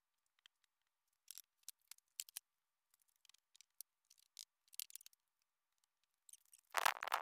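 Footsteps of work boots: sparse crisp crackles on dry leaves and grass, then one louder scuff near the end as a boot comes down on the wooden porch steps.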